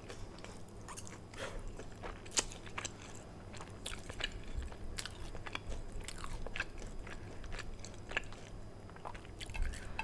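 A person chewing and biting Chinese takeout food, with irregular wet mouth clicks and crunches several times a second.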